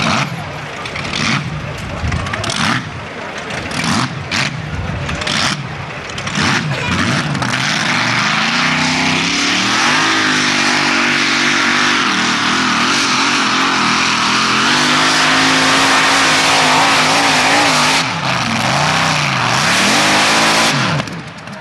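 Modified pulling tractor's engine. It starts with short throttle blips at the start line, then climbs to full power and holds at high revs through the pull. It dips briefly about eighteen seconds in and cuts off abruptly near the end.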